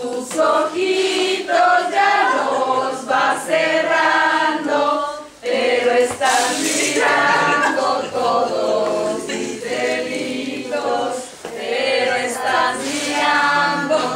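A group of people singing together without instruments, several voices holding long sung notes in phrases, with a short break about five seconds in.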